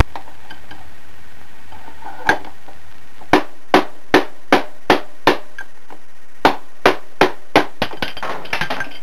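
Hammer striking a steel 1/2-inch drive extension used as a punch to drive out the rusted rear drum bearing of a Maytag Neptune front-load washer. A single blow, then two runs of evenly spaced blows, about two and a half a second, ending in a brief rattle of small metallic ticks.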